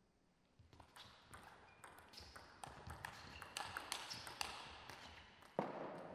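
Table tennis rally: the ball clicking quickly back and forth off rackets and table, starting about half a second in. Near the end comes one louder sudden knock, then it dies away.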